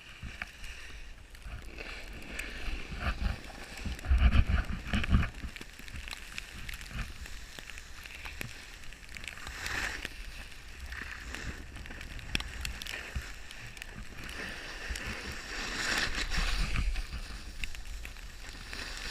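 Snowboard sliding and scraping over snow, with wind buffeting the helmet camera's microphone in low gusts, strongest about four seconds in and again near the end.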